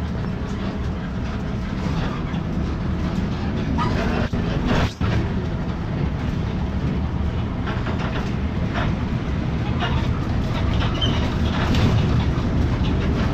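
Daewoo BS106 city bus driving, heard from the front by the door: a steady engine and road rumble with frequent rattles and clicks. The rattling is the kind a front door makes when it is not fully shut.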